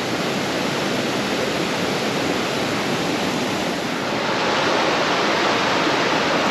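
Creek water rushing steadily, kind of loud, getting a little louder about four seconds in.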